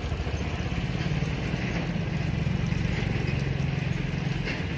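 An engine idling steadily: a low, even hum with a fast regular pulse.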